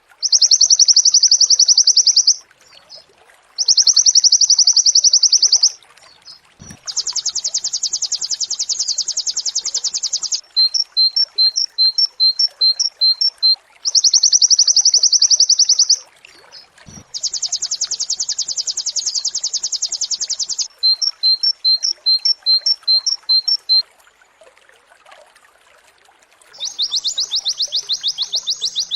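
Pleci (white-eye) singing: loud, fast trills of two to three seconds each, alternating with runs of short, quick chirps, in the rapid-fire 'nembak' style. The song pauses briefly a little before the end, then another trill begins.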